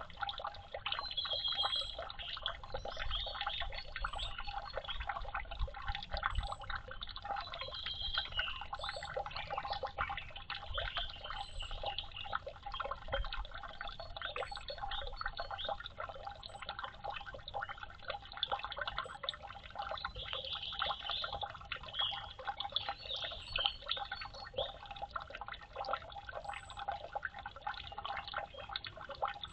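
Steady, dense pattering and trickling of water drops, with short bird chirps now and then.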